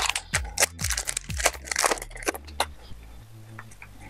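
Upper Deck hockey trading cards being handled: a quick run of sharp flicks and snaps as cards are slid and set down, thinning out to softer, sparser card rustles after about two and a half seconds.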